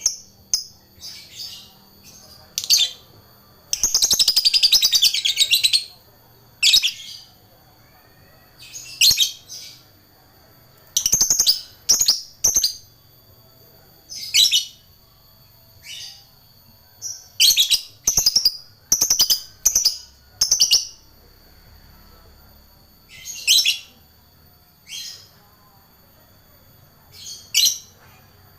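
Lovebird calling in short, sharp, high chirps, often two or three in quick succession, with one long rapid chattering trill about four seconds in.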